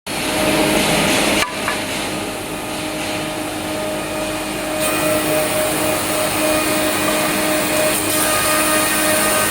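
Four-sided wood sanding machine (MB4015GX) running: a steady machine hum with a constant hiss and a few held tones, dipping briefly about a second and a half in.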